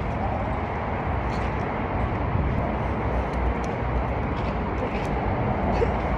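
Steady outdoor background noise: a low rumble with hiss over it and a few faint high ticks.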